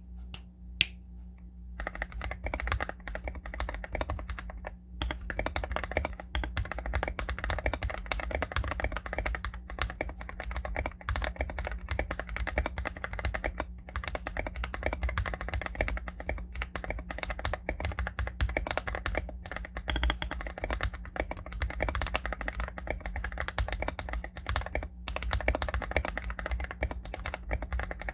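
Typing on a Feker IK75 mechanical keyboard with lubed Akko CS Lavender Purple switches on a PC plate, foam- and tape-modded: fast, continuous keystrokes starting about a second in, with a few short pauses.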